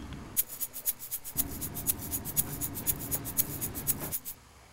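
Rapid ticking of a wristwatch, sped up to about seven slightly uneven ticks a second over a low rumble, cutting off suddenly near the end.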